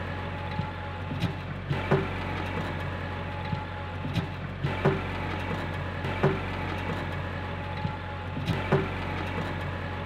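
Compact tractor with a front-end loader running steadily while backfilling a trench, with irregular sharp knocks and clanks every second or so as the loader works the dirt.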